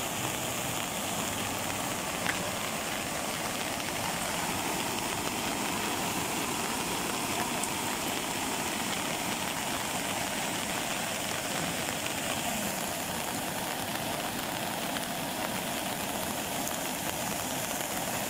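Floodwater from an overflowing river rushing steadily across a submerged road, a continuous even rush of water.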